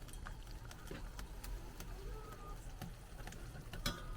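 Faint, scattered clicks of tableware, with a few louder clinks near the end, over a low steady rumble.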